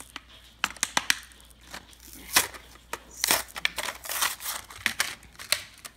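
Cardboard backing card being torn and peeled off a clear plastic blister pack of toy trains by hand: a string of irregular sharp crackles, clicks and tearing sounds, loudest about two and a half and three and a half seconds in.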